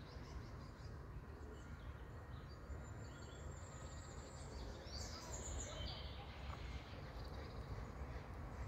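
Faint outdoor ambience: a low steady rumble with distant songbirds chirping here and there, a brighter bird phrase about five seconds in.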